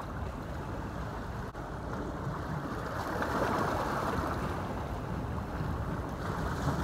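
Ocean water washing in with the incoming tide, mixed with wind rumbling on the microphone; the wash swells about three seconds in.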